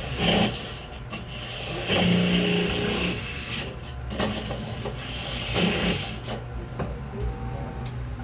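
A drill bit scraping and rasping in short repeated bursts as it enlarges a hole in a copper part.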